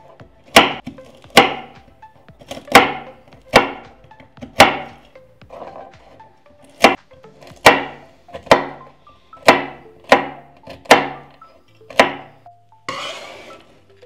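Chef's knife chopping walnuts on a wooden cutting board: about a dozen sharp chops, roughly one a second and slightly irregular, then a short rustling noise near the end.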